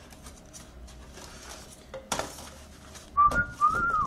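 Packaging and a plastic disc case rustling and clicking as they are handled, with a sharp knock about two seconds in. Near the end comes a person's whistling, a short high note and then a longer one that rises and falls.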